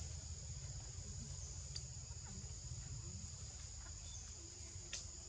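Steady high-pitched chirring of an insect chorus, with a low rumble underneath and a couple of faint clicks, about two and five seconds in.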